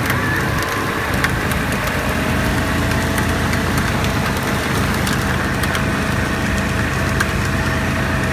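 Small gas engine running at a steady speed, with a thin steady whine joining about two and a half seconds in.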